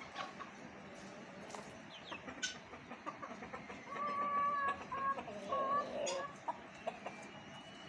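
Rooster clucking: a run of short, steady-pitched calls from about four to six seconds in, with a few sharp clicks before them.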